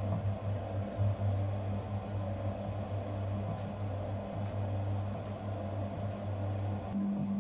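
Electric bowl dough mixer running, its motor giving a steady low hum as the hook kneads a large batch of dough.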